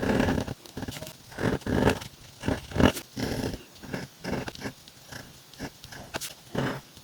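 Calligraphy pen nib scratching across paper in a series of short separate strokes, with small sharp clicks as the nib touches down and lifts off.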